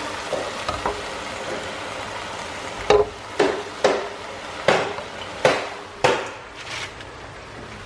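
Spinach sizzling in a hot frying pan while it is stirred with a wooden spatula. From about three seconds in come about seven sharp knocks, roughly two-thirds of a second apart, of the wooden spatula and pan as the spinach is worked and moved.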